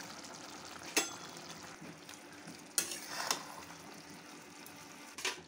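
A spatula stirs a thick chilli curry of palm-fruit pieces in a metal kadai over a steady sizzle. Sharp scrapes and clinks of the spatula against the pan come about a second in, twice around three seconds, and again near the end.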